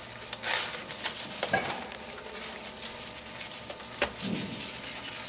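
Crinkling and rustling of plastic wrapping and cardboard as a factory-sealed box of trading cards is handled and opened by hand, with small clicks and a sharper tap about four seconds in.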